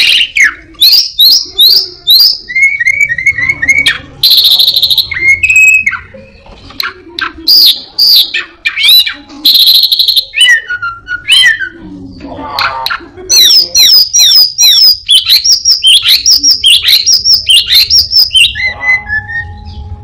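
Caged anis binbin songbird singing loudly and without pause: a varied song of quick chirps and downward-sweeping whistles, with harsh buzzy phrases about four and ten seconds in and a fast run of repeated notes in the second half. The song is packed with calls mimicked from other birds.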